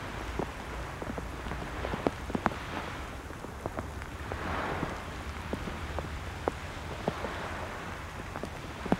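Outdoor shoreline ambience: wind noise on the microphone over a steady hiss, with scattered small ticks and crackles throughout.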